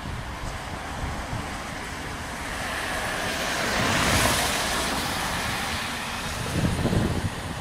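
Road traffic noise from a vehicle passing on the road, swelling to a peak about four seconds in and fading, with wind buffeting the microphone.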